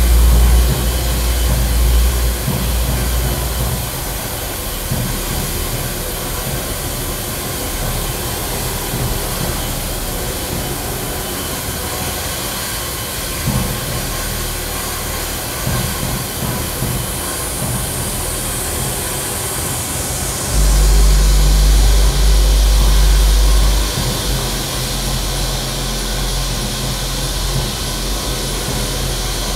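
Electronic white-noise soundtrack: a loud, even static hiss, with a deep low hum that swells in at the start and again about two-thirds of the way through for a few seconds.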